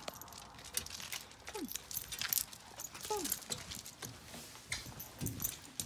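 Basset hound giving two short whines, each falling in pitch, amid the metallic jingle of collar tags and leash clips.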